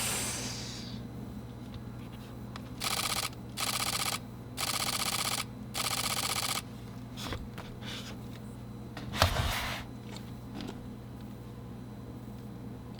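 Fujifilm X-H2S shutter firing in four rapid continuous bursts, each a fast even run of clicks lasting about half a second to a second, with a single louder click later on. A steady low hum sits underneath.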